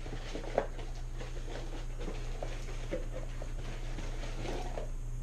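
Light rustling and small knocks from things being moved about by hand, with one sharper knock about half a second in, over a steady low hum.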